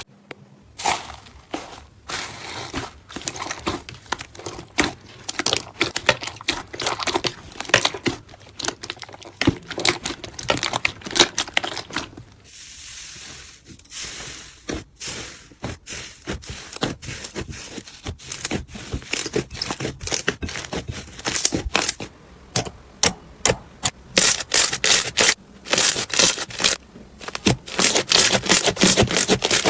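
Hands squeezing and pressing slime, with quick crackling clicks and pops, loudest and densest near the end.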